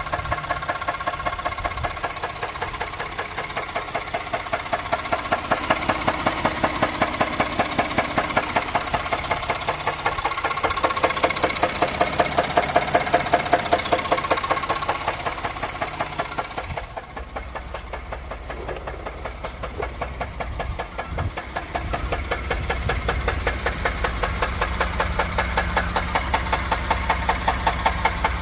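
Engine running with a steady, rhythmic knock: the owner can't tell whether it is rod knock or a broken flex plate. About two-thirds of the way through the sound turns duller, with a deeper rumble under the knocking.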